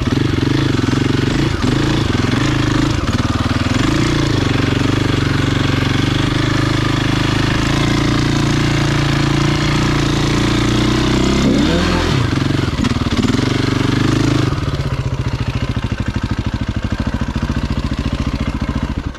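Single-cylinder 450 four-stroke enduro dirt bike running at low revs, with brief throttle changes about 4 and 12 seconds in. It settles quieter about 14 seconds in and cuts off suddenly at the end.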